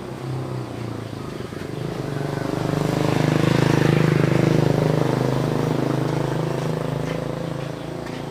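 A motor vehicle's engine passing close by with a steady running note: it grows louder to a peak about four seconds in, then slowly fades.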